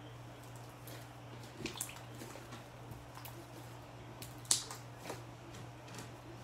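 Slime being squeezed and kneaded by hand: wet squishing with a scatter of sharp sticky pops and clicks, the loudest a little past halfway.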